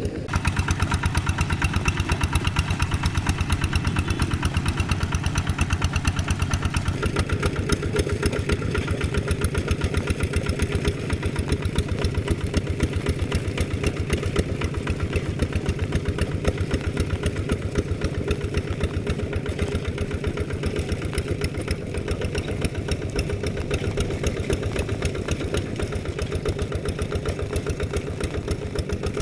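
Kubota RD110DI-2T single-cylinder diesel engine of a Quick G3000 Zeva walking tractor running steadily under load, a rapid even chugging, as the tractor pulls a moldboard plough through a flooded rice paddy. The tone shifts slightly about seven seconds in, and the engine grows a little fainter after about ten seconds.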